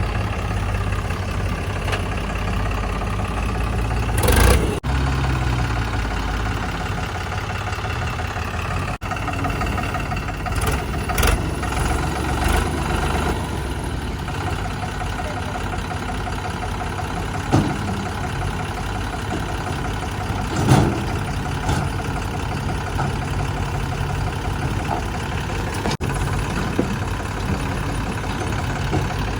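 Diesel engine of a backhoe loader or tractor running steadily, with a few short loud knocks.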